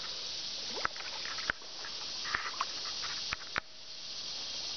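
Steady hiss of creek water running, with a few sharp clicks and taps scattered through it.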